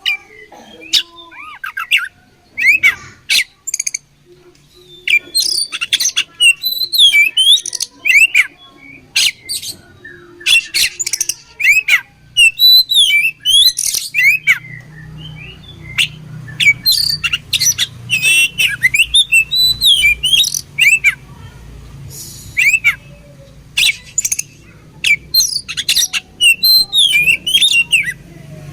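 Oriental magpie-robin (kacer) singing in rapid bursts of sharp, harsh notes and curving whistles, phrase after phrase.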